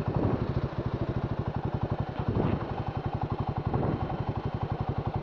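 Royal Enfield Himalayan 450's single-cylinder engine running steadily at idle, with a fast, even beat.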